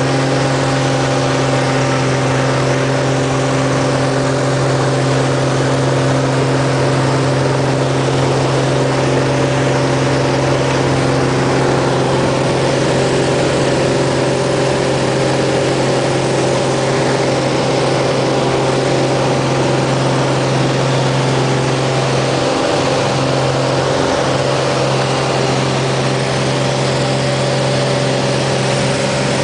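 Light propeller plane's piston engine at takeoff power, heard from inside the cabin during the takeoff roll: a loud, steady drone with a strong low propeller hum.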